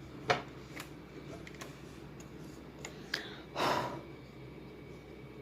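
A few light, scattered clicks and taps, with one short breathy puff of air a little over three and a half seconds in.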